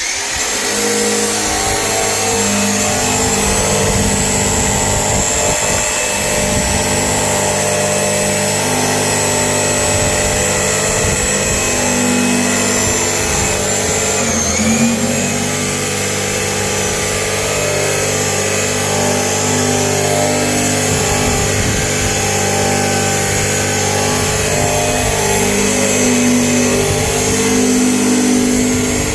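KATSU 1250 W electric drum sander running steadily with a high motor whine. Its pitch briefly sags about halfway through.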